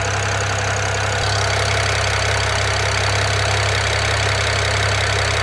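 BMW N54 twin-turbo inline-six idling steadily under an open bonnet, still warming up on its first heat cycle after a rebuild. It runs smoothly, without the rough idle it used to have.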